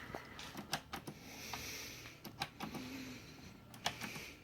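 Faint, scattered clicks and taps of hands working the touch buttons and cords of a power switch box, with a brief low hum about two thirds of the way in.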